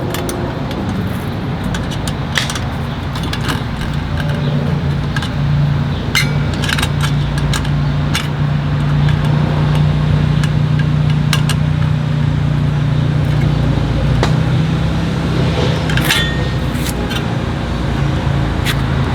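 A car engine running steadily with a low hum, while small metal clicks and clinks of bolts, washers and tools being handled sound on and off.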